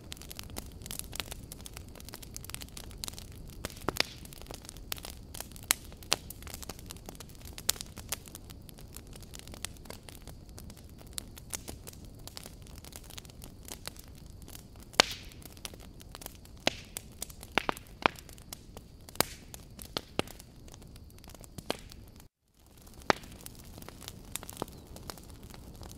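Crackling fire: irregular sharp pops and crackles over a low steady hiss, cutting out completely for an instant about 22 seconds in.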